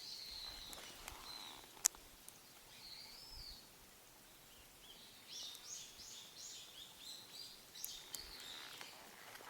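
Wild birds calling, with a run of quick repeated high chirps from about five seconds in. A single sharp click about two seconds in.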